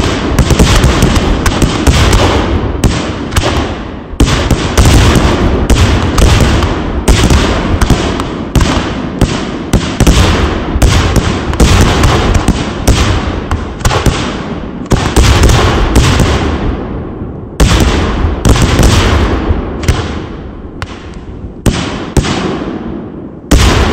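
Fireworks going off in a rapid, continuous barrage: several loud bangs a second, each with a short echoing tail.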